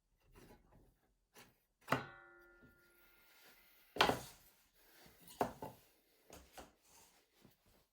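Wooden workpieces knocked and set down on a workbench: a sharp knock about two seconds in that rings briefly, the loudest knock about four seconds in, then several lighter taps.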